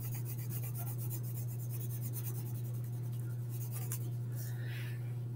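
Graphite from a wooden pencil held on its side scratching across paper in quick back-and-forth shading strokes, a steady fine rasp. A steady low hum runs underneath.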